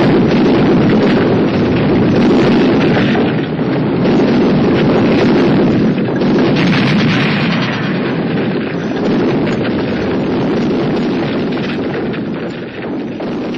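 Explosion in a TV action drama: a loud, continuous rumble of blast and debris that slowly fades toward the end.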